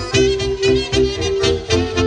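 Romanian folk band playing live: saxophones carry a held melody over keyboard and a pulsing bass beat.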